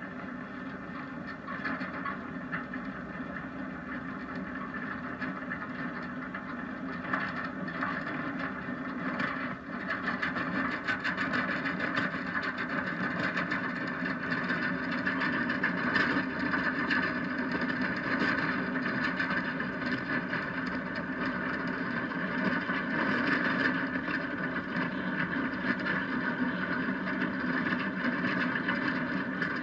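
Onboard rolling noise of a downhill gravity kart: wheels rumbling on asphalt with wind. A steady rush that grows gradually louder as the kart gathers speed.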